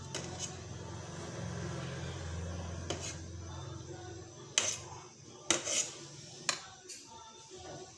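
Metal ladle clinking several times against the aluminium pot and a bowl while skimming foam off boiling pork broth, the clinks mostly in the second half, over a steady low rumble.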